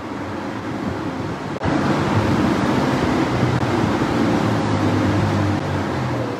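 Wind buffeting the microphone: a steady rushing noise with a low rumble, which dips for an instant about a second and a half in and then comes back louder.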